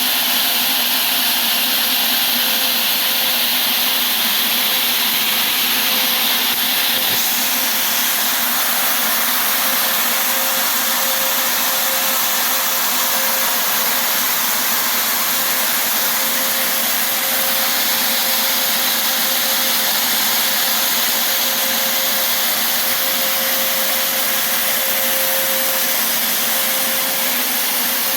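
Greenhouse ULV (ultra-low-volume) fogging machine running steadily: its blower makes a constant rushing hiss with a steady hum.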